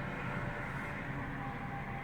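Steady road noise from inside a moving car: a low, even rumble of tyres and engine.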